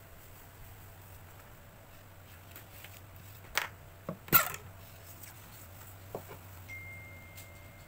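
Sheets of kraft paper being handled on a paper cutter's board: a few short sharp rustles and knocks as the paper is slid and squared, the loudest about four and a half seconds in.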